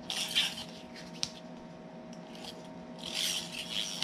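Hands rubbing and pressing cardstock as tape is laid onto it: a papery rubbing rustle in two spells, at the start and again about three seconds in, with a sharp tick about a second in.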